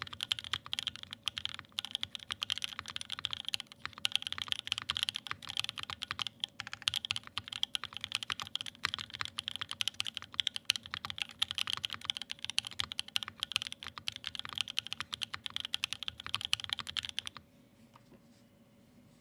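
Continuous fast typing on a Wilba.tech Thermal mechanical keyboard with Creamsicle switches lubed with Krytox 205g0 and filmed, GMK keycaps and an aluminium plate: a dense run of keystrokes that stops about two seconds before the end.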